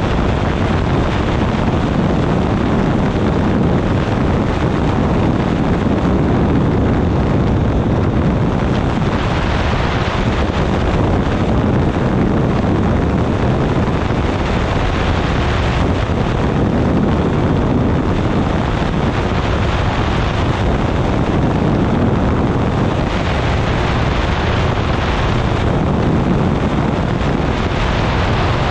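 Loud, steady wind rushing over the microphone of a wing-mounted camera on a weight-shift microlight trike in cruising flight, with the trike's pusher engine and propeller droning beneath it.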